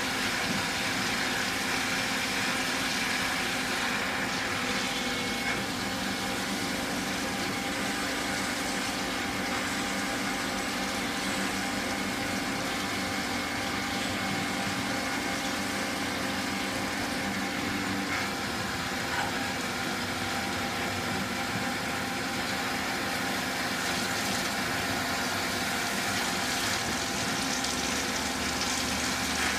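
1994 Citizen E32 CNC Swiss-type lathe running a machining cycle: steady hum of its spindles and drives with coolant spraying and splashing inside the enclosure. A low hum in the sound drops out about two-thirds of the way through.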